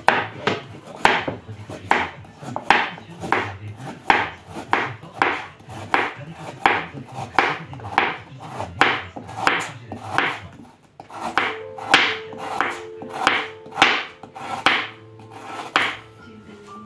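Chef's knife slicing a carrot into rounds on a cutting board: a steady run of chops, about two a second, each stroke the blade cutting through and knocking the board.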